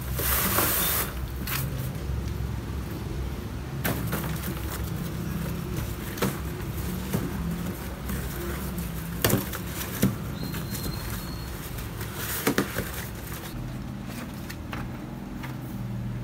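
Cardboard box being handled: a rustle at the start, then a few sharp knocks and taps as the box flaps are pressed and folded shut over a small artificial Christmas tree, over a steady low hum.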